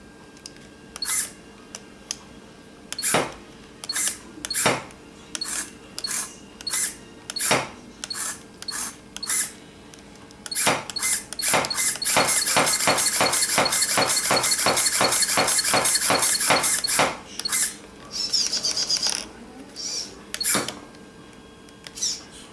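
The lift servo of an RC4WD snow plow on an RC crawler, whirring in short bursts as the plow is raised and lowered. About halfway through it runs for about five seconds in a fast string of pulses, roughly five a second, then gives a few more short bursts.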